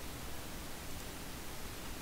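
Steady background hiss of the recording microphone, with no other sound.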